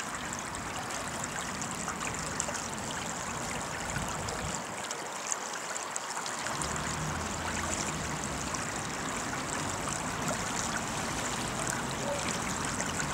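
Floodwater flowing steadily along a footpath turned into a shallow stream, running and trickling over the paving and grass edge.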